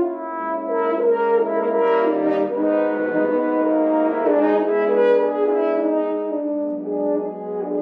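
Small brass ensemble playing slow, sustained chords, several notes held together and moving from one chord to the next.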